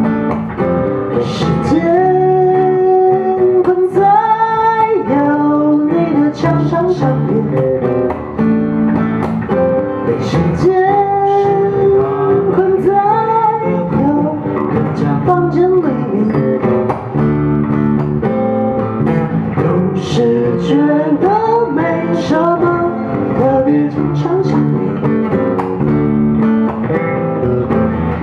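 A singer's voice with acoustic guitar accompaniment, an unplugged live performance of a song.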